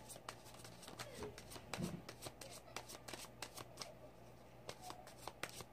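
A deck of oracle cards being shuffled by hand: a run of faint, quick, irregular flicks and clicks of the cards.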